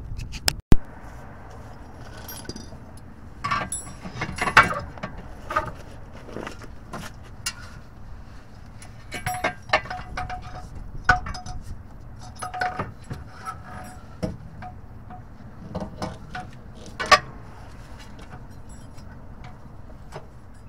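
Metal clinks, knocks and scrapes as a replacement CV axle is worked up into place under a 2011 Toyota Sienna, a few of them ringing briefly. A single sharp click comes under a second in.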